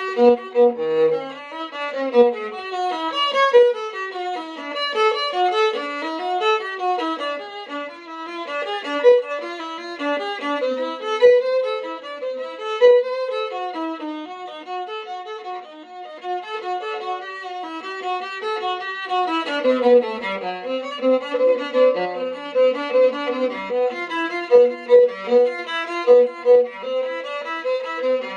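A 16-inch German Alfred Stingl viola is bowed through quick running passages of notes up and down the instrument. In the second half it changes to a string of short, quickly repeated notes.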